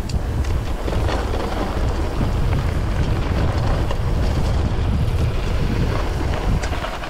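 Wind buffeting the microphone in a loud, steady rumble, with scattered clicks and knocks; it eases off near the end.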